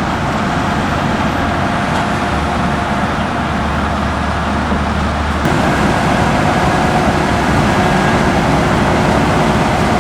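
Heavy farm machinery engines running steadily during the maize harvest. The sound changes abruptly about halfway through, as if to a different machine.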